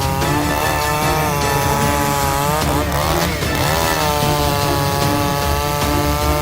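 Chainsaw engine running at high revs. About three seconds in, its pitch dips and climbs back.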